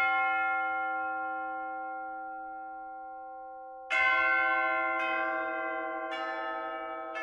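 A bell struck once, ringing on and slowly dying away; about four seconds in, bells of differing pitch start striking one after another, about one a second, each left to ring.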